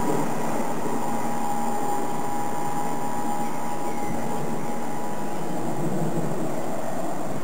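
DB Class 423 S-Bahn electric multiple unit pulling away and receding, with a steady rumble and a high electric whine that fades out about halfway through.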